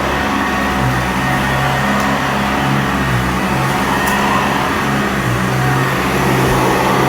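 Sanitaire vacuum cleaner running over carpet, its motor and brush roll whirring steadily during pre-vacuuming; the low hum under the whir shifts in pitch every second or so.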